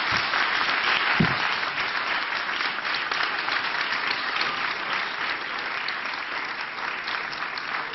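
Audience applauding, a steady dense clapping of many hands that eases slightly toward the end.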